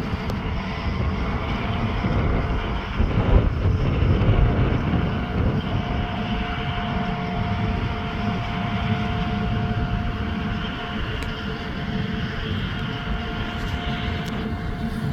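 Farm tractor and potato harvesting machinery running steadily, with a thin steady whine joining the engine rumble about six seconds in.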